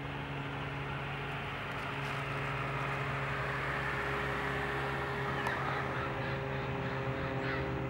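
Steady mechanical drone of an unseen engine or motor: a low hum with a few steady pitched lines under a hiss, slightly swelling. A short bird call sounds near the end.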